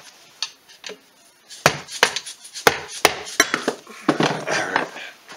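A run of sharp, irregular hammer taps on a Polaris Sportsman 500 engine crankcase, starting about one and a half seconds in, knocking the case half free of the water pump shaft while a case splitter pulls the case apart.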